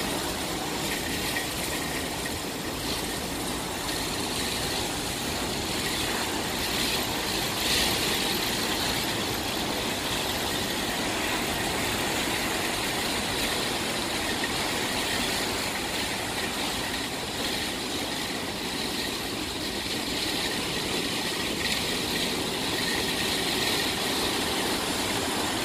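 Steady noise of a ferry under way: its engine running under the rush of water past the hull.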